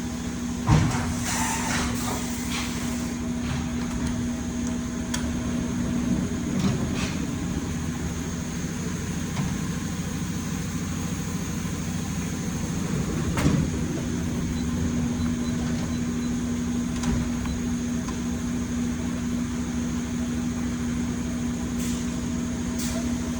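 Steady hum of a CNC milling machine standing powered up, with a constant low tone. A few clunks and knocks of tools being handled, the loudest about a second in and about thirteen seconds in.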